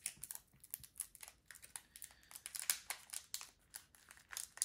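Foil Pokémon booster pack wrapper crinkling as it is handled and opened, a quick run of small irregular crackles and clicks.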